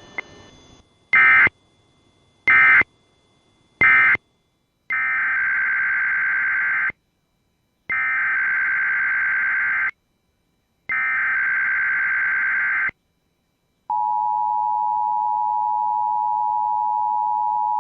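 Emergency Alert System tones: three short screeching data bursts (the end-of-message signal), then three longer two-second SAME header data bursts, then the steady EAS two-tone attention signal (853 and 960 Hz) starting about 14 seconds in.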